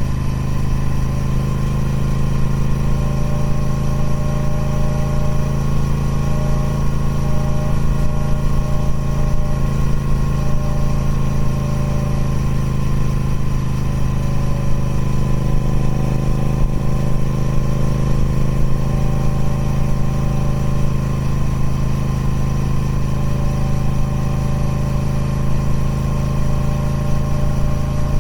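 Triumph Speed Twin 1200's parallel-twin engine running steadily through its stock exhaust, at an even pitch with no revving.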